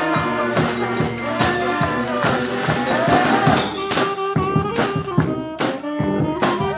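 Brass band playing live: horns carrying the tune over a steady drum beat.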